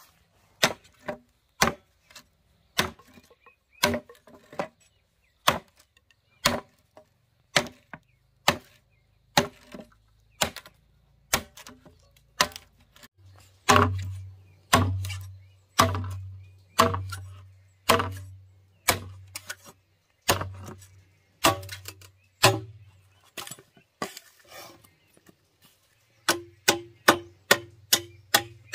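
Repeated chopping strokes, about one or two a second, each a sharp crack. From about the middle they land louder, each with a dull low thud.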